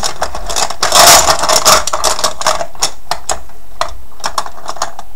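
Poker chips clattering and clicking against each other in a cup as a hand rummages through them to draw one. Dense clatter for about the first two seconds, then scattered single clicks.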